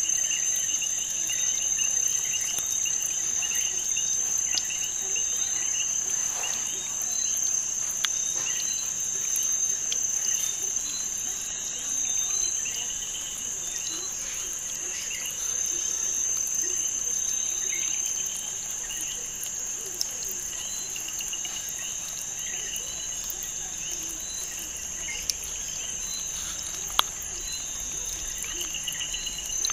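Chirping insects: a steady high-pitched trill with short chirps repeating over it throughout.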